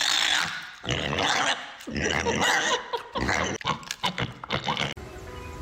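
A pet animal making a run of harsh, noisy growl-like calls for about five seconds, cut off by background music near the end.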